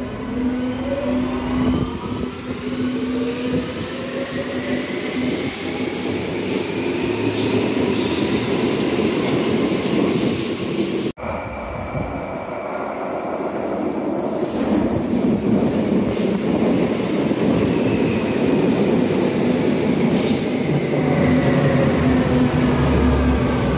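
Berlin U-Bahn H-series train pulling out of an underground station, its traction motors whining in several tones that rise in pitch as it speeds up. After a sudden break about halfway, another large-profile U-Bahn train runs in with a rumble, its motor whine falling in pitch as it slows.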